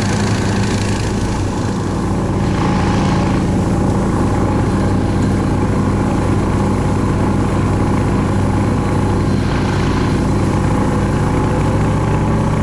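A vehicle engine running steadily under way, a little louder from about two seconds in.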